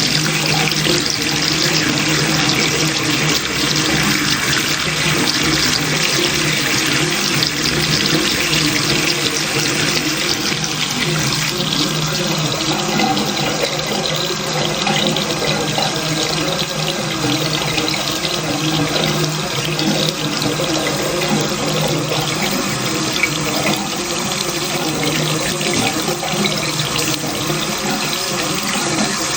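Water running steadily from a bathroom tap, splashing down into a sink or basin.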